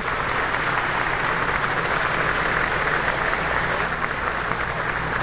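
Sustained applause from an audience, a steady dense clapping, over a low steady hum.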